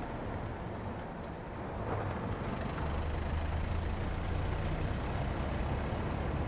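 Car tyres rolling over a rough road surface: a continuous coarse rumble and road noise that grows a little louder and heavier about two seconds in.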